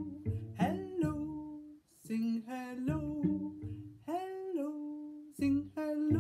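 A woman singing a simple melody while plucking a cello pizzicato, with a brief pause about two seconds in.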